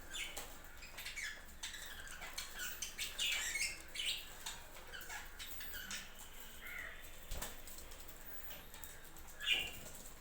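Budgerigars chirping and chattering: a run of short, quick calls one after another, with a few sharp clicks among them.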